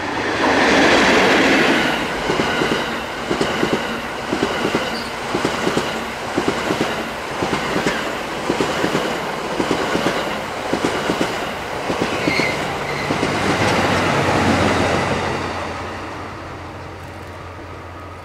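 An ED79 electric locomotive hauling the E26 Cassiopeia sleeper coaches passes close by. The locomotive's pass is the loudest moment near the start. The coaches then run by with a steady rhythm of wheel clatter over the rail joints, swell once more, and fade as the train recedes.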